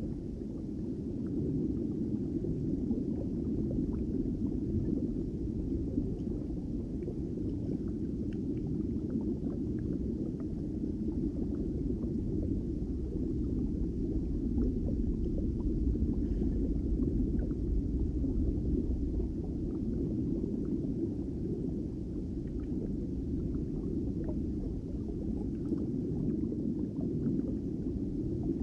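Underwater ambience through a GoPro in its waterproof housing: a steady, muffled low rumble of water with faint scattered ticks.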